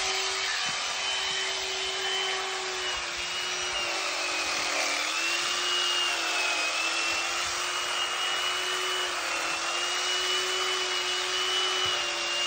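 Electric horse clippers running with a steady whine as they cut through a draft horse's coat. The pitch sags about four seconds in and then wavers as the blades meet more resistance.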